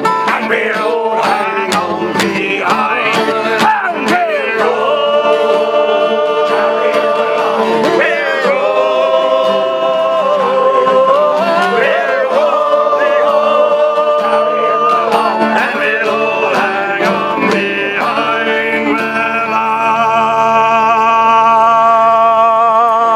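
A group of men singing a sea shanty together in harmony, holding long notes, over strummed acoustic guitar and ukulele.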